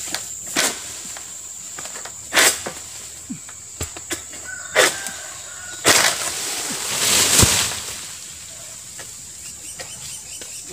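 An oil palm harvesting pole's blade knocking and scraping against the fruit stalk and fronds high in the palm crown. A few sharp knocks come through the stretch, and a longer rustling scrape comes about six to eight seconds in. A steady high-pitched whine sounds underneath.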